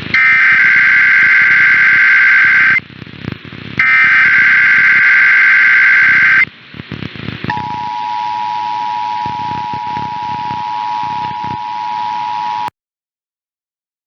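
Emergency Alert System test tones. First come two long, loud bursts of the warbling digital SAME header. From about halfway through, the steady two-tone attention signal sounds. It cuts out to dead silence for over a second and comes back at the very end.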